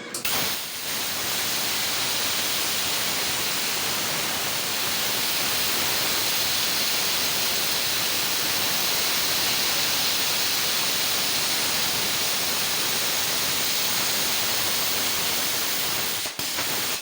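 LGK 80 air plasma cutter's arc cutting metal: a loud, steady hiss that starts abruptly, with a brief break shortly before it stops.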